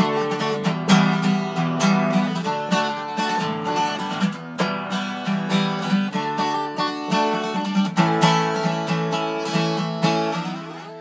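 Acoustic guitar strummed in a steady folk rhythm with no singing, an instrumental break between verses; the strumming gets quieter near the end.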